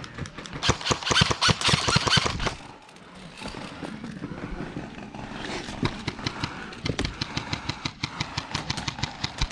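Airsoft guns firing on full auto: a loud, rapid burst in the first two or three seconds, then a longer, quieter string of shots at about six a second in the second half.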